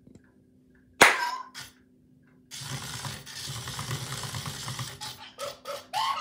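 Boxer toy robot performing a stunt. A sudden electronic sound effect with a falling pitch comes about a second in. Then its drive motors whirr for a few seconds as it spins and rolls on a wooden tabletop, and short electronic chirps follow near the end.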